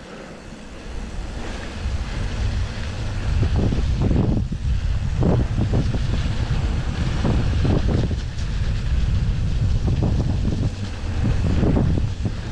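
Wind buffeting a GoPro Hero 9's microphone as a mountain bike rides a rough trail, with tyre rumble and repeated rattles and knocks from the bike over bumps. The rush grows louder about two seconds in.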